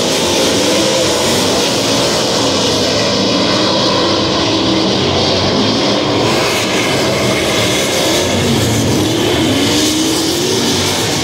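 Several World of Outlaws winged sprint cars' 410-cubic-inch V8 engines running loudly around the dirt oval. The engine pitch rises and falls as the cars pass and lap the track.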